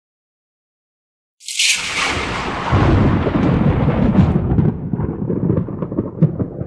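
Thunderclap: a sudden sharp crack about a second and a half in, followed by a long low rumble that slowly fades.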